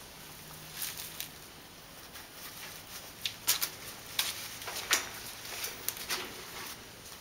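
Handling noises from inside a metal-barred cage: rustling in leafy bedding with a string of sharp clicks and knocks, busiest from about three to five seconds in.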